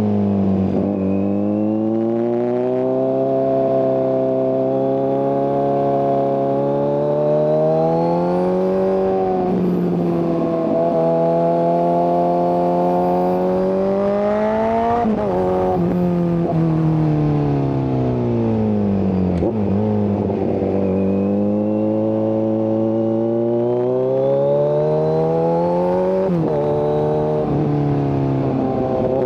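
Kawasaki Z900's inline-four engine breathing through an SC-Project exhaust with the catalytic converter removed, ridden hard. The pitch climbs steadily for several seconds and then drops back, over and over, as it pulls up through the revs and shifts or comes off the throttle, with deeper, longer falls around the middle and near the end.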